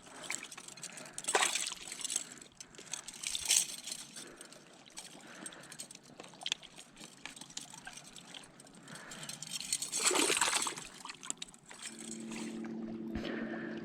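Water trickling and sloshing at the shoreline, with a few louder splashes about a second and a half in, three and a half seconds in and ten seconds in. A low steady hum comes in near the end.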